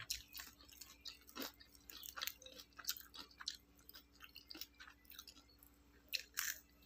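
A person chewing crispy fried chicken close to the microphone: faint, irregular crunching clicks, with a couple of louder ones near the end.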